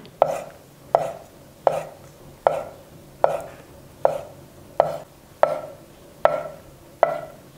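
Kitchen knife slicing boiled eggs into half-rings on a wooden cutting board: the blade knocks on the board about once every three-quarters of a second, ten even strokes, each with a short ring.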